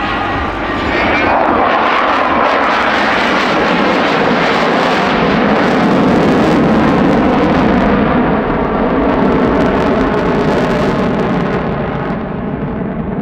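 F-16 Fighting Falcon's jet engine roaring as the fighter flies overhead. The loud, rushing noise swells about a second in, then grows duller toward the end as the jet pulls away.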